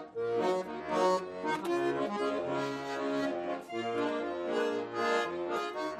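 Instrumental intro of a song: an accordion melody over a bass line.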